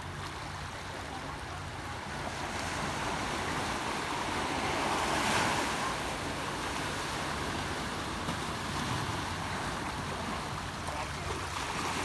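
Small ocean waves washing over and around shoreline rocks. One surge swells up about halfway through and then eases off.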